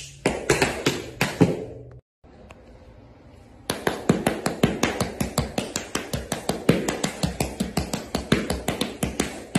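Tap shoes striking a hard studio floor in fast rhythmic runs of taps. A brief gap about two seconds in, then quick continuous tapping resumes just before four seconds in.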